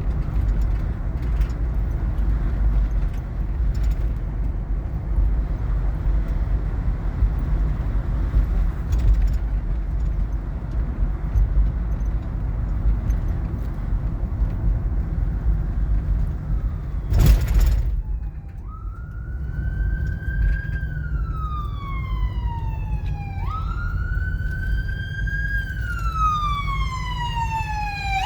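Steady road and engine rumble inside a moving car, a sharp knock about 17 seconds in, then an emergency vehicle's siren wailing: each cycle rises quickly and falls slowly over about five seconds, repeating three times toward the end.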